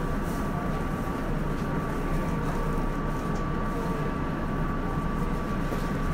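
Tokyo Metro 02 series subway train standing at an underground platform, its equipment giving a steady low hum and rumble, with a thin, constant high-pitched tone over it.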